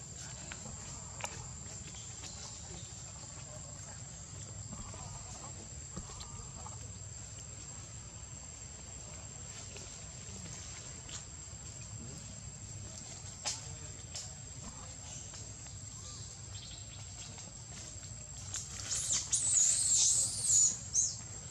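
A steady high insect drone, with a short burst of shrill, gliding squeaky animal calls about three seconds before the end.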